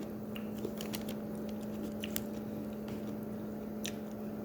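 Close-up eating sounds: chewing and biting with a few sharp clicks, over a steady low hum.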